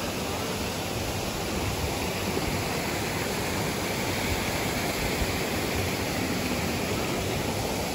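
Waterfall rushing: a steady, even roar of falling water, unbroken.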